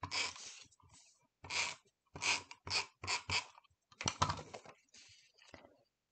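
Paper pieces being handled, slid and pressed flat on a cutting mat while an adhesive tape runner is rolled across them: a run of about eight short strokes.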